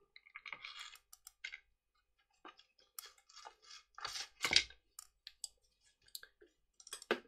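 Wooden dice trays being handled and shifted on a paper-covered tabletop: scattered light clicks and rustles, with one louder wooden knock about four and a half seconds in as a tray is set down.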